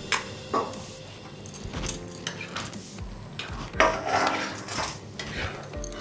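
Steel spatula clinking and scraping against a kadai as paneer cubes go into thick gravy and are stirred in, with irregular knocks and the loudest clink about four seconds in.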